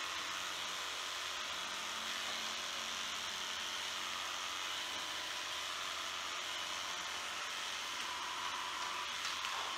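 Electric dog grooming clipper running steadily, a smooth hiss-like buzz, as it shaves a dog's heavily matted coat.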